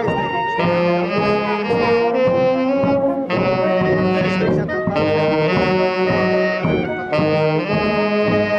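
Miners' brass band playing a tune outdoors: trumpets, baritone horns and tubas in held chords, the phrases broken by brief breaks about three and seven seconds in.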